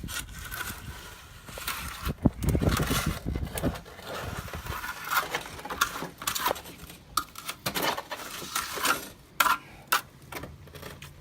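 Water splashing and spattering irregularly as concrete residue is rinsed off a PVC snap jacket around a dock piling, with scattered sharp knocks and a louder, heavier stretch about two to four seconds in.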